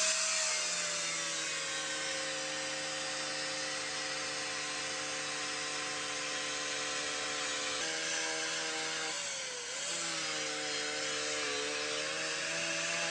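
Angle grinder with a sanding disc running against the steel slide of a TT-30 pistol, sanding off its coating: a steady motor whine over a rasping hiss. The pitch sags briefly and recovers about ten seconds in.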